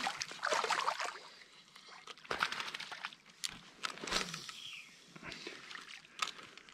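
A small hooked fish splashing and thrashing at the water's surface beside the canoe for about the first second, followed by a few scattered light knocks and clicks.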